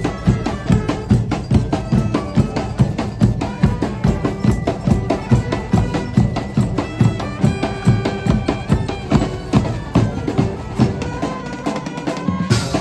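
Music with a steady percussive beat, about two to three hits a second, under a melody of held notes.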